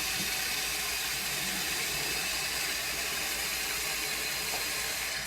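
Water hissing steadily through the fill valve of a 1995 Mansfield Alto toilet tank as it refills after a flush. The valve shuts off sharply just past five seconds in, when the tank is full.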